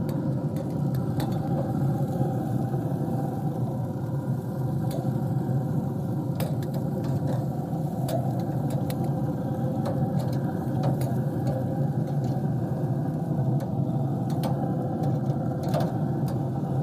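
A steady motor hum, with scattered light clicks of metal tongs on the pellet grill's grate as vegetables are turned.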